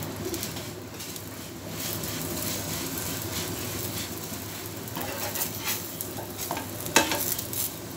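Oil sizzling under an aloo paratha in a frying pan, with a metal slotted turner scraping and tapping against the pan as the paratha is lifted and flipped. There are a few sharp clicks in the second half, the loudest a little before the end.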